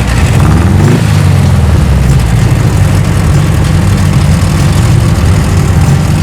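Air-cooled VW flat-four engine in a dune buggy running, with a brief rise in revs about a second in before settling back to a steady run. It still runs a little off, better than before but not right.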